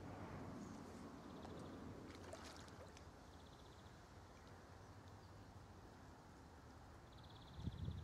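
Quiet riverside ambience: a faint low rumble with a few short, high, rapid ticking trills and a brief patch of clicks about two seconds in. Low rumbling buffets rise near the end.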